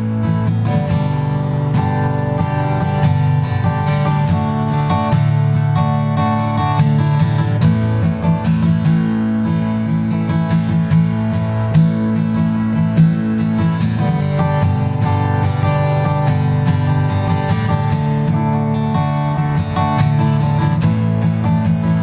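Acoustic guitar playing the instrumental intro of a song, a steady run of plucked and strummed chords with no singing.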